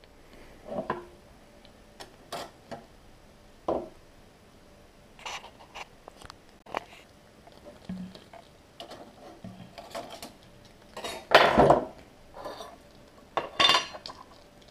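Light metallic clinks and knocks of a small tin-can emergency stove's sheet-metal windshield and tin lid being handled. The loudest clatter comes about two-thirds of the way through, as the windshield is lifted off.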